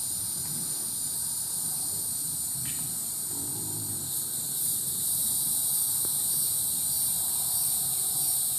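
Steady, high-pitched chorus of insects, with faint low rustling underneath.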